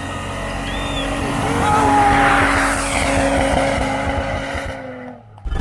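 Toyota 4x4 engine revving as its tyres spin and churn through deep snow, with a rushing spray of snow that swells about two seconds in and then eases off. The sound dips sharply near the end.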